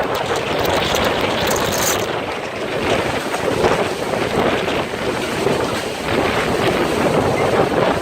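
Loud tornado wind gusting and rushing, buffeting the microphone, with surges in strength every second or so.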